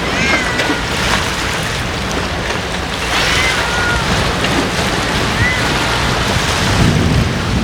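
Strong wind buffeting the microphone, a steady rushing roar with low rumble. Three short, high, curving calls cut through it: once near the start, once about three seconds in, and once about five and a half seconds in.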